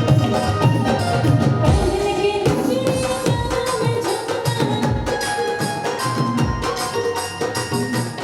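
Music with a steady, regular drum beat under a sustained melodic line.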